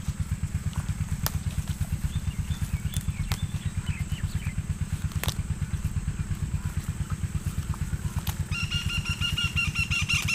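An engine running at an even, fast-ticking idle, a steady thump about nine times a second. Near the end a high, steady-pitched sound joins it.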